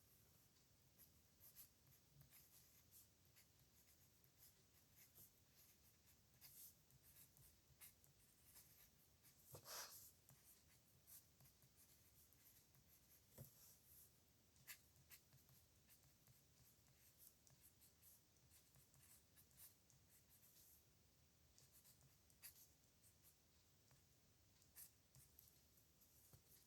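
Faint scratching of a pen on paper in many short strokes as characters are handwritten, with one louder stroke about ten seconds in.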